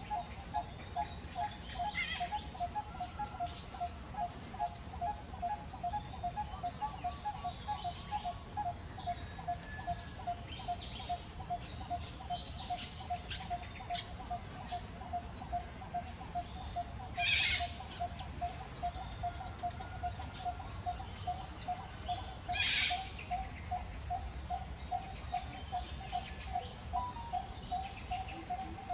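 A bird repeating one short note, evenly and a few times a second, with other birds chirping higher up. Twice in the second half there is a short, harsh, noisy burst.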